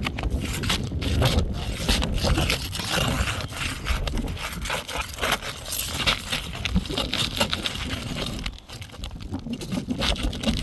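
Roof shingles scraping and crackling as they are pried up, with many small irregular clicks and cracks. The shingles tear as they are lifted, the sign that they are too brittle to be repaired.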